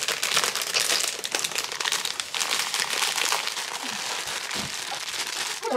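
Plastic bag of shredded coconut crinkling as it is opened and its contents are poured into a mixing bowl.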